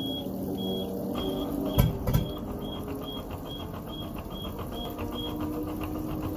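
Regal boat's sterndrive engine running on its trailer, with a high warning beeper sounding about twice a second until about five seconds in. Two heavy thumps come about two seconds in.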